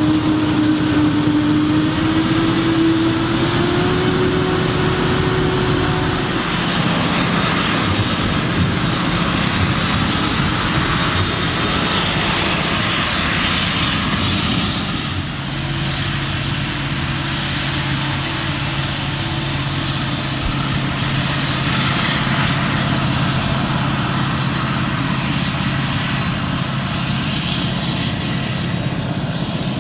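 Claas Jaguar 940 forage harvester chopping maize under load, its engine and cutterhead making a steady drone and whine, mixed with the engine of a tractor pulling a silage trailer alongside. About halfway through the sound drops to a lower, steadier hum.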